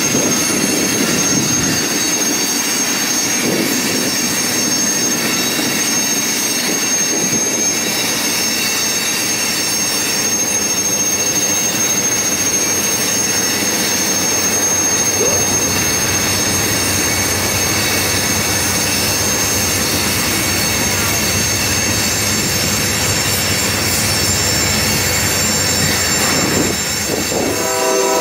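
Union Pacific double-stack container train rolling past, its steel wheels squealing in several high steady tones over the continuous noise of the cars on the rails.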